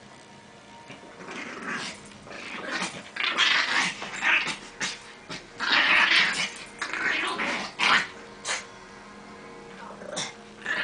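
Dogs growling in a play-fight, with a small dog squaring up to a much larger one over a toy. The growls come in repeated bursts, loudest in the middle, with a few short sharp sounds near the end.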